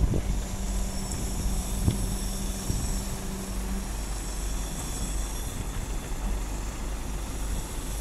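Junjin truck-mounted concrete boom pump running with a steady engine drone. A steady hum in the drone stops about four seconds in.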